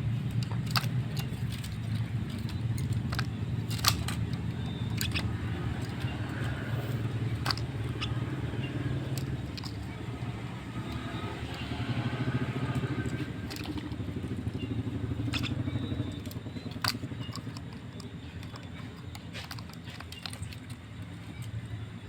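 A motor engine running steadily, with scattered sharp clicks over it.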